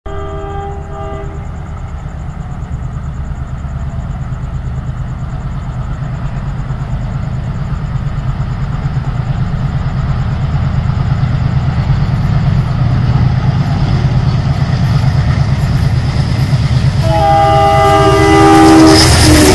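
ALCO diesel locomotive approaching at speed: its engine rumble grows steadily louder throughout. A short horn blast sounds right at the start, and a long, loud multi-tone horn blast comes about two seconds before the end as the locomotive nears.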